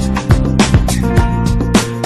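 Background music: an upbeat guitar track with a steady beat.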